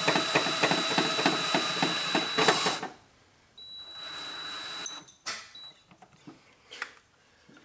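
Cordless DeWalt right-angle drill driving a self-tapping screw into engine-bay sheet metal: a whining run with a rapid ticking through it that stops about three seconds in. A shorter, quieter run follows about half a second later, then a few light knocks.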